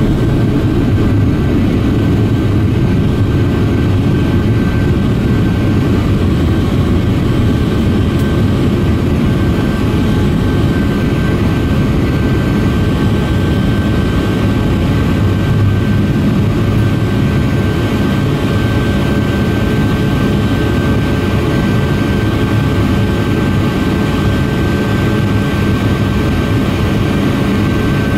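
Boeing 757-300 jet engines running at high power through liftoff and the initial climb, heard from inside the cabin: a steady, loud rumble with a thin whine held above it.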